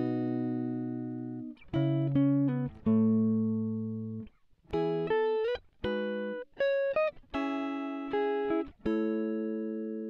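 Background music: slow plucked chords and notes, each struck sharply and left to ring out and fade before the next.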